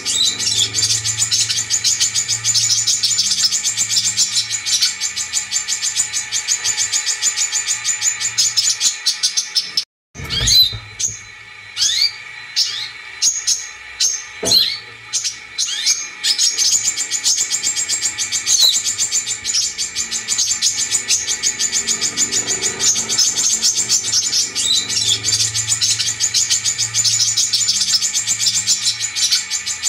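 Brown-throated sunbird (kolibri kelapa) song played as a lure recording: fast, continuous high-pitched chattering and trilling. About ten seconds in it cuts out briefly, then gives way to a few seconds of separate sharp calls that drop in pitch, before the dense chatter resumes.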